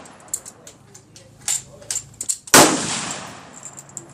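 A single close gunshot about two and a half seconds in, with a long echoing tail. Several fainter sharp cracks come before it.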